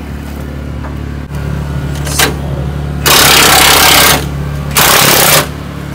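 Pneumatic impact wrench hammering in two bursts, the first about a second long and the second shorter, working on a rusted bolt on a truck's frame. A click comes just before, and a steady low hum runs underneath.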